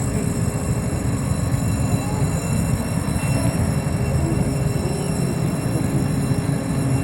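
Car ferry Kanaya Maru's engines running as she leaves port: a steady low rumble with a faint hum over it.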